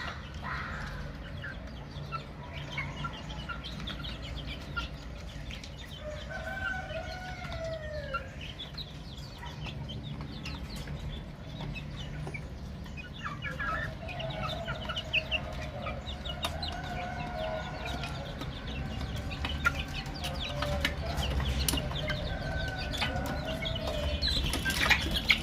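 Baby chicks peeping in many short, high chirps, with a few longer, lower calls from an adult chicken mixed in. A steady low hum runs underneath.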